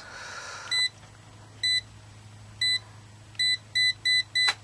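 Fieldpiece SC56 clamp meter beeping as its buttons are pressed to select the range: seven short high beeps, the first three about a second apart, then four in quick succession.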